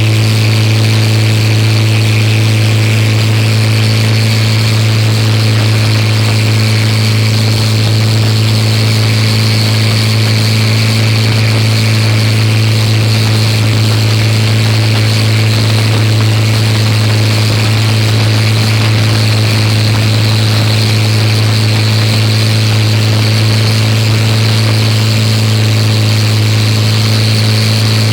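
Mitsubishi L300 engine running steadily at a constant speed, a loud even hum that holds one pitch without revving.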